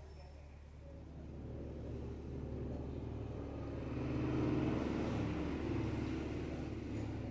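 A motor vehicle passing, its engine rumble growing louder to a peak about halfway through, then fading, over a steady low hum.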